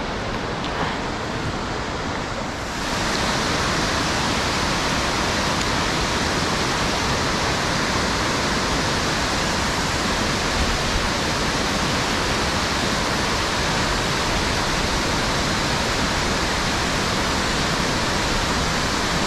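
Water pouring over a concrete dam spillway: a steady rushing that grows louder and brighter about three seconds in.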